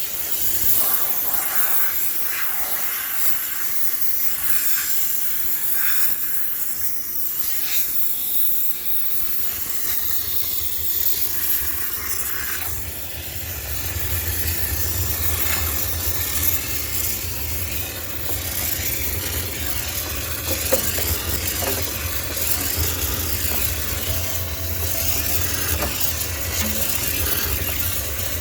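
High-pressure steam cleaner spraying steam to sanitise a sneaker washing machine: a steady hiss, with a low hum coming in beneath it about halfway through.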